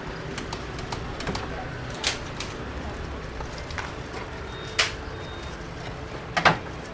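Steady background noise broken by three short, sharp clicks or knocks, a couple of seconds apart, the last one a quick double and the loudest.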